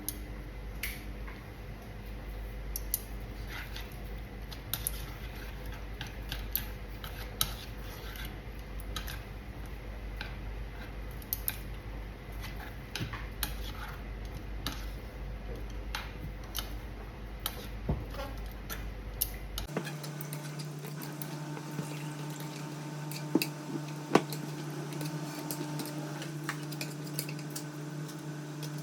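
Kitchen utensils clinking and tapping against pots and dishes in scattered, irregular clicks over a steady low hum. About two-thirds of the way through the background changes abruptly to a different steady hum, with only a few clicks after that.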